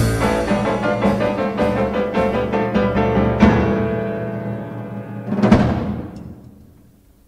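Band music playing sustained chords under repeated drum hits, ending with a final loud crash about five and a half seconds in that rings away to silence near the end.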